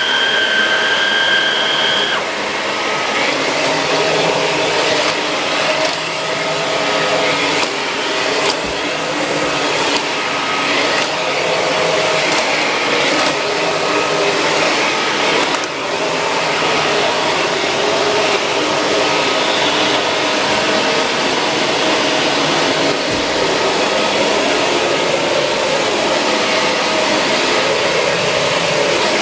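Shark Rotator Pro Lift-Away NV500 vacuum cleaner running steadily while vacuuming. A high whine drops out about two seconds in, and there are a few light knocks.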